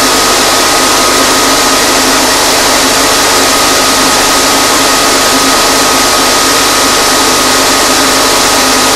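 The centre propeller of a Coanda-effect disk aircraft model, running steadily and blowing air down over the disk: a constant rush of air with a thin, steady high whine.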